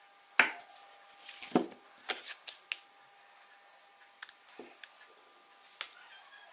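Knocks and clicks of metal sewing-machine parts being handled: the loosened head and needle-bar assembly of a Singer 29K33 patcher is turned over in the hand, giving two sharp knocks about half a second and a second and a half in, then scattered lighter clicks.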